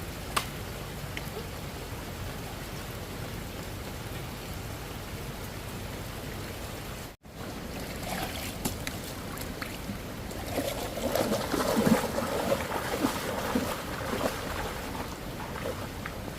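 Water sounds: a steady hiss of running water or rain, broken off sharply about seven seconds in, followed by louder, uneven splashing and sloshing that is strongest in the second half.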